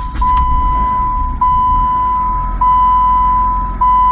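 A car's electronic warning tone sounds as a steady, loud high beep, renewed about every second, over a freshly started 2008 Chrysler PT Cruiser engine idling with a low rumble. The owner calls the idle kind of smooth, but the engine has a cylinder 1 misfire, code P0301.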